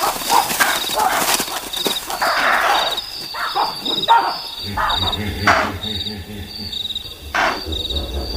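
Crickets trilling steadily at night, with repeated short bursts of rustling and scuffling in the grass as antelope bolt. A low hum comes in about halfway through.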